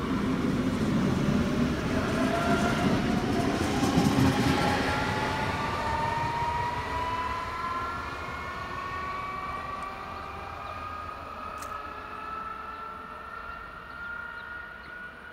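DB S-Bahn electric multiple unit pulling away from the station and accelerating. Its traction motors give a whine that rises steadily in pitch, over a rumble of wheels on rail that is strongest in the first few seconds. The whole sound fades as the train moves off.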